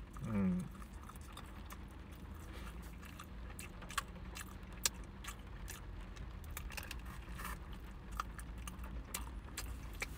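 A man chewing a mouthful of steamed pizza bun close to the microphone, with scattered small wet mouth clicks and smacks over a low steady hum. A short hum of his voice comes right at the start.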